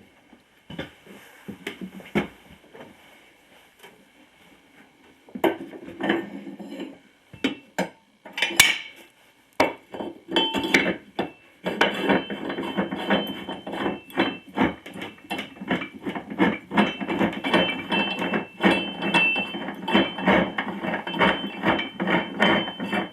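Steel parts of a manual tire changer clanking and knocking while the bead of a garden tractor tire is broken off the rim. Scattered knocks at first, then from about ten seconds in a fast, continuous run of metallic clinks and rattles.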